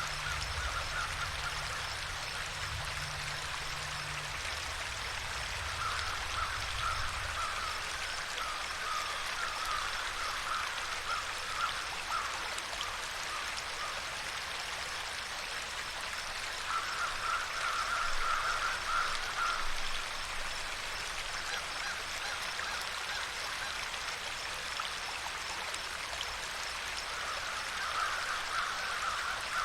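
Steady rushing and trickling of a stream. Three times, a rapid chattering animal call runs for a few seconds over the water.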